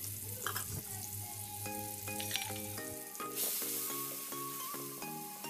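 Ground chili and shallot spice paste sizzling in hot oil in a wok as it is sautéed until fragrant, stirred with a spatula. Light background music of plucked notes in a steady rhythm comes in about a second and a half in.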